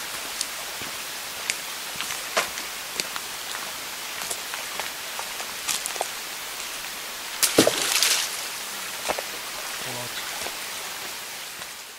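Outdoor lakeshore ambience: a steady rushing hiss with scattered small clicks and knocks, and a louder burst of knocking and rustling about eight seconds in. The sound fades out at the end.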